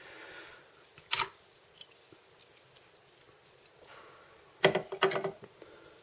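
Small metal tools being handled on a tabletop: one sharp click about a second in, then a quick run of clicks and clatter near the five-second mark.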